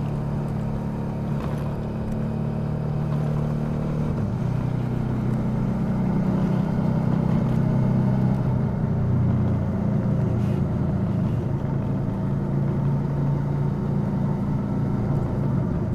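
Suzuki V-Strom 650's 645 cc V-twin engine running while the motorcycle is ridden through town. About four seconds in the engine note changes and grows a little louder.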